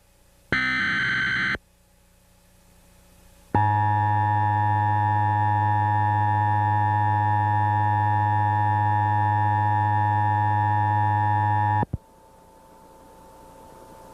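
Emergency Alert System signal: a one-second screech of a SAME digital header data burst, then after a short pause the steady two-tone EAS attention signal for about eight seconds, cutting off suddenly, followed by faint hiss.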